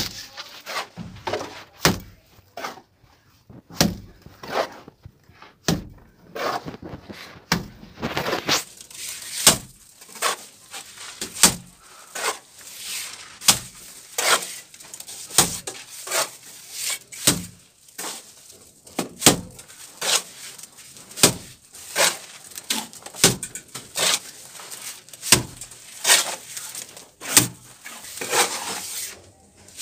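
Cement mortar thrown from a trowel onto a wall of lightweight AAC (hebel) blocks, landing in short, sharp slaps about once a second.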